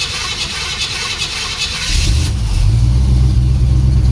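Jeep engine cranking on the starter from cold, catching about two seconds in and settling into a louder, steady run. The owner takes the way it starts as a sign that it is badly in need of a retune.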